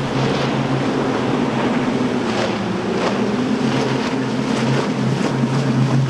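Motorboat engine running steadily, with the rushing hiss of water and wind and a few brief splashes.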